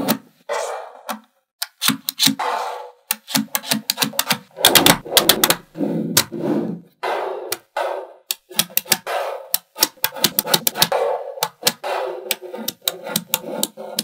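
A large sheet of small magnetic balls being handled and folded: rapid sharp clicks as the balls snap together and break apart, mixed with short gritty rattling stretches as they slide over one another.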